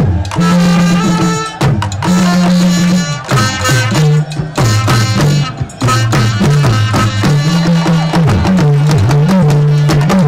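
Intro music with busy hand drums and percussion, a low pitched line that slides up and down in steps under the beat.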